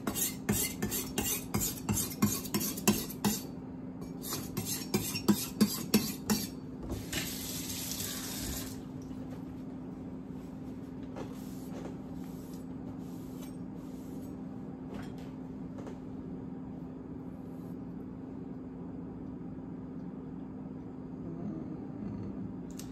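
Chef's knife stroked quickly against a wet diamond whetstone, a rasping scrape about four times a second, in two runs over the first six seconds, touching up the dull spots along the edge. About seven seconds in, the tap runs briefly to rinse the blade. After that there is only a faint steady hum with a few light clicks.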